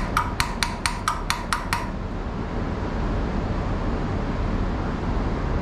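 A quick run of about nine light metallic clicks, roughly four or five a second, from hands working on the fuel line and carburetor fittings of a small garden-tractor engine; after about two seconds only a steady low hum remains.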